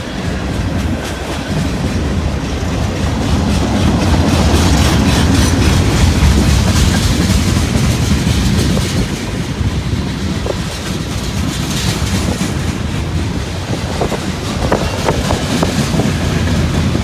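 Freight train cars rolling past with a steady rumble, their steel wheels clicking over the rail joints, with a few sharper clicks in the last few seconds.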